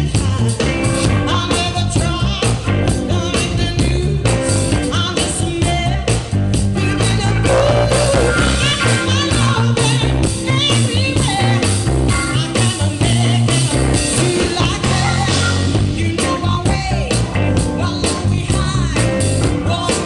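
A woman singing blues live with a band, electric guitar and a steady beat behind her.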